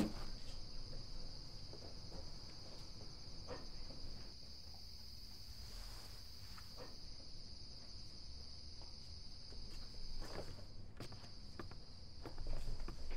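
Crickets chirring in a steady high trill, dropping out briefly near the end, with a few faint soft knocks and rustles.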